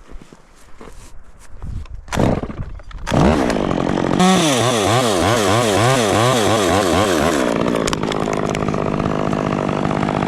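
Two-stroke Stihl chainsaw coming to life about three seconds in, its engine revving up and down over and over for several seconds, then running at a steady speed.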